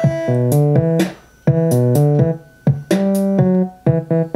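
Hocokiki modular music kit playing button-triggered electronic music: short pitched chords changing every fraction of a second, with cymbal-like hits on the beats. The music drops out briefly twice, about a second in and just past two seconds, then starts again as buttons are pressed.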